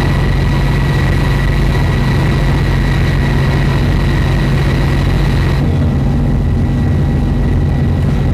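Warship's engines and machinery heard from on deck: a steady, heavy low rumble with a thin constant whine above it, shifting slightly at a cut about five and a half seconds in.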